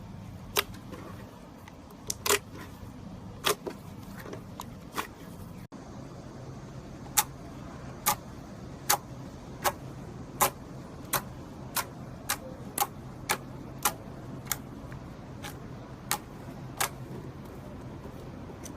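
Slime being pressed and worked by hand, giving a string of sharp clicks and pops. They come irregularly at first, then settle into an even beat of about one every three-quarters of a second.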